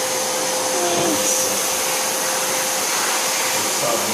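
Vacuum cleaner running steadily, its motor whine holding one pitch over the rushing air noise.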